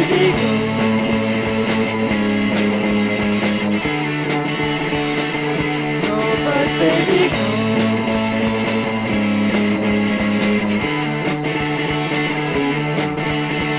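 A rock band's demo recording without vocals: guitars hold chords that change every few seconds over a steady drum beat, with a bending lead guitar line near the start and again about halfway.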